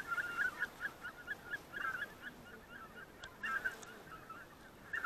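Greater white-fronted geese calling: a quick, uneven run of short, high-pitched honks, several birds overlapping, with louder clusters about two seconds in and near the end.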